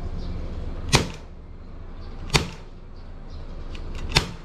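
Airsoft Glock pistol firing three single shots, sharp pops about one and a half to two seconds apart.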